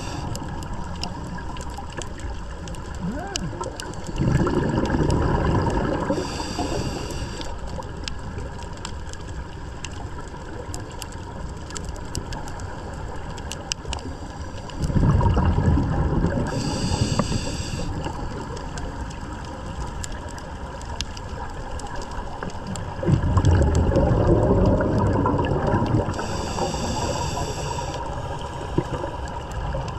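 Scuba diver breathing through a regulator underwater. Three rumbling, gurgling bursts of exhaled bubbles come about four, fifteen and twenty-three seconds in, each followed by a short hiss of air drawn through the regulator. Under them is a steady underwater hiss with scattered faint clicks.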